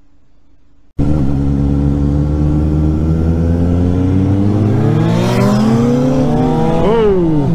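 Motorcycle engine accelerating, starting abruptly about a second in. Its revs climb over several seconds, then spike and drop sharply near the end.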